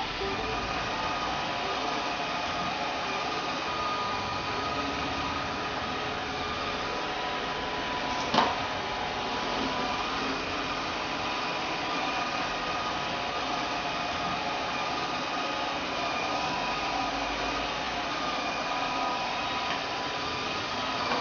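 LG Hom-Bot Square VR6270LVM robot vacuum running: a steady whir of its suction fan and brush motors, with a few held tones over the noise, measuring around 55 dB. One sharp knock stands out about eight seconds in.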